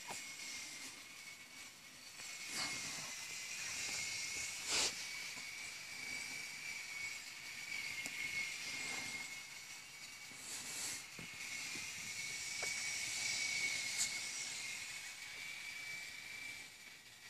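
Steady hiss with a faint, high, even whine, broken by a few short soft clicks.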